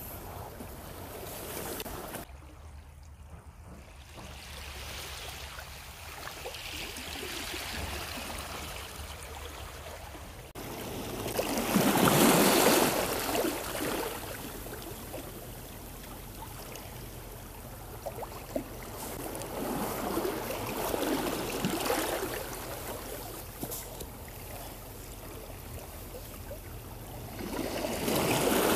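Seawater washing and lapping against a stone seawall. The wash swells up three times, a couple of seconds each, and the first swell is the loudest.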